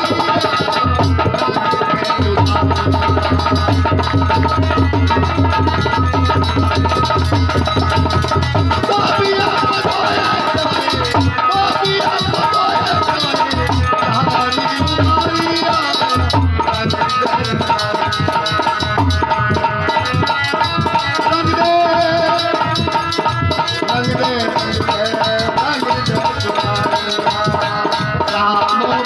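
Indian devotional bhajan music without recognisable words: a hand drum keeps a steady rhythm under held melodic tones.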